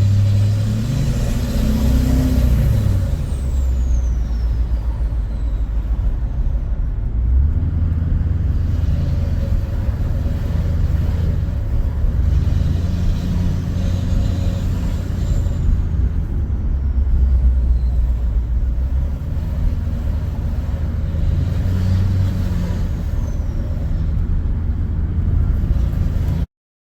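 A 2006 LBZ Duramax 6.6-litre V8 turbodiesel pickup running steadily while cruising down a street, a deep drone that rises and falls a little with the throttle. A high whistle glides down in pitch a few times over the engine.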